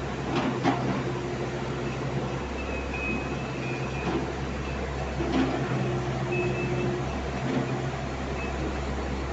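Hitachi mini excavator's diesel engine running steadily while it digs, with a few scattered knocks and brief high-pitched squeals from the working machine.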